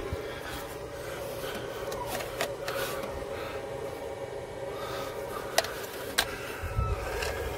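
Sharp metal clicks and light scraping from battery cables and terminals being handled, over a steady hum; the cables and grounds are poor and dirty.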